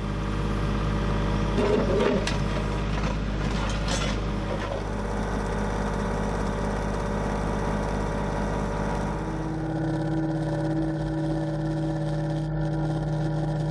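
Kubota compact tractor's diesel engine running steadily while the backhoe works, with a few knocks about two and four seconds in. The engine note changes about ten seconds in.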